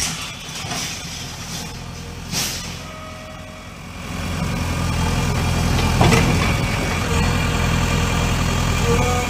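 Diesel engine of a JCB excavator running steadily, getting louder about four seconds in, with a single knock about six seconds in.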